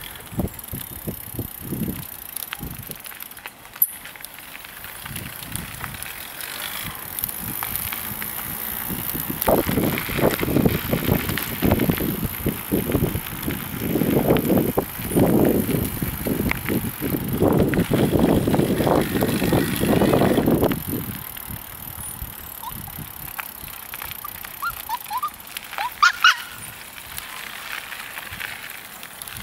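Electric bicycle riding along a dirt and gravel path, its tyres rolling, with a louder rumbling stretch in the middle. A few short, high rising squeaks come near the end.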